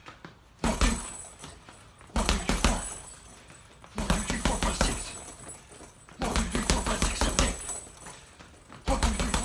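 Rapid flurries of gloved punches smacking a hanging Everlast heavy bag. They come in five quick bursts separated by short pauses, each burst a little longer than the last, as the punch count builds up.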